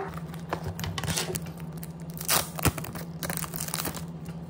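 Clear plastic packaging crinkling and being torn open by hand in irregular rustles, loudest about a second in and again around two and a half seconds in.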